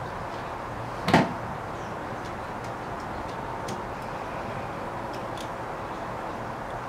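Small clicks and ticks of a screwdriver and wires being handled while connecting the black wire to an electrical outlet, with one louder knock about a second in, over a steady hiss.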